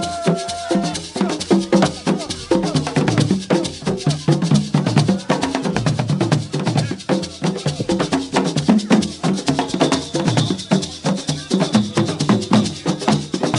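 Fast drum-driven music: many drum strokes a second with a shaker rattling along, and pitched notes woven through the rhythm.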